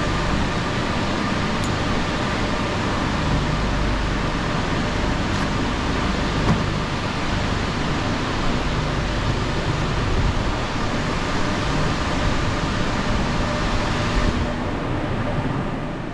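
Steady loud rush of moving air with a faint hum under it, like running fans; its hiss drops away about fourteen seconds in.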